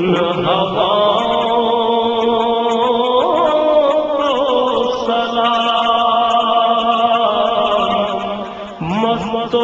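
Man's voice singing an Urdu naat in long held notes, sliding to a new pitch about three seconds in and again near the end, with no drum beat.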